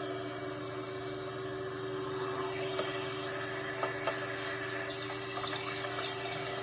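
Vacuum cleaner running with a steady hum, with a few faint knocks near the middle.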